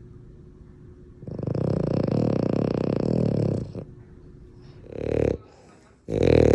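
French bulldog snoring: one long snore of over two seconds, then two short snores a second or so apart.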